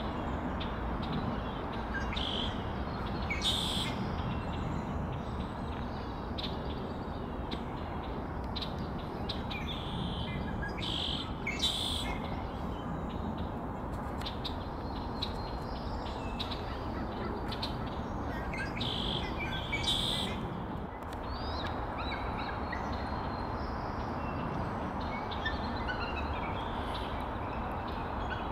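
Female bald eagle calling the male in to mate: a few brief, high-pitched calls spread out, then a series of falling, piping notes near the end. A steady low rumble runs underneath.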